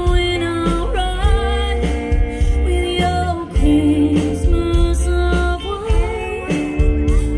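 Live band playing: a singer holds notes with vibrato over electric guitar and drums, with a heavy low beat.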